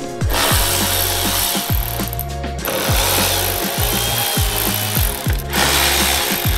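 Cordless electric ratchet running on a charge-pipe hose clamp, loosening it, in three long runs with short pauses between. Background music with a steady beat plays underneath.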